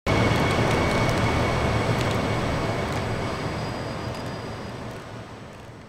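Wide-body 3000-series subway train running away down a tunnel, its rumble fading steadily as it recedes. A thin steady whine sits over the rumble in the first couple of seconds.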